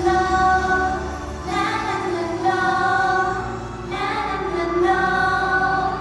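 Female group vocals singing a Thai pop song over an amplified backing track, the phrases ending on long held notes.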